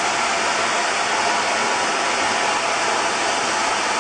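5-axis CNC machining centre's spindle running a small ball-end mill across a metal mould surface: a steady, even hiss.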